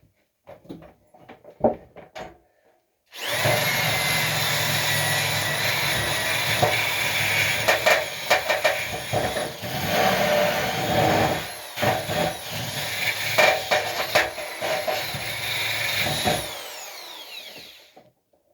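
Handheld electric power tool working wood: a few handling clicks, then the motor starts about three seconds in and runs with a steady high whine that dips briefly under load several times. Near the end it is switched off and spins down with a falling whine.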